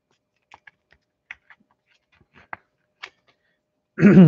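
A few faint, light clicks and taps, about seven in all, from trading cards being handled; a voice starts near the end.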